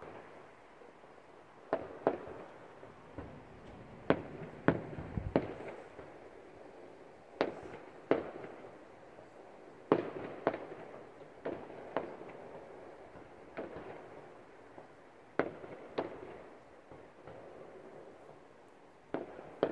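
Fireworks going off: about twenty sharp bangs at irregular spacing, many in quick pairs, each trailing off in an echo.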